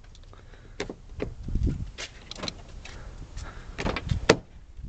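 Car door of a 2002 Infiniti G20 being opened and handled: a series of clicks and knocks from the latch and door, the sharpest near the end, over the rumble and rustle of a handheld camera.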